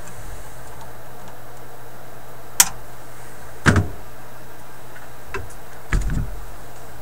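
Tools and parts handled on a workbench: a sharp click, then a dull knock a second later, and near the end a few light ticks and another dull knock, over a steady low hum.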